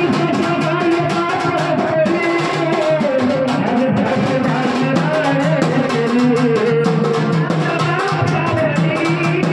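Devotional gondhal music: a steady, rhythmic drum beat under a melody that runs on without a break.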